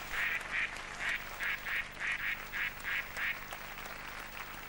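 A white domestic duck quacking: a run of about ten short quacks, roughly three a second, that stops after about three and a half seconds.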